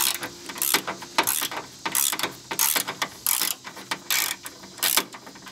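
Hand ratchet wrench with a 10 mm socket on an extension, clicking in short bursts about every half second as it is worked back and forth to back out a bolt on a radiator fan assembly.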